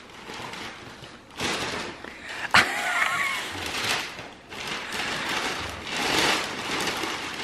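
Wrapping paper being ripped and crumpled off a large gift box, in a series of tearing bursts with a sharp snap about two and a half seconds in.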